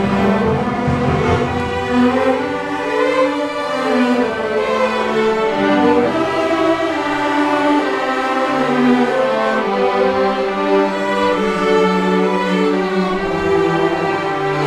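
A youth string orchestra of violins, cellos and double bass playing together, bowed notes held and moving in several parts at once.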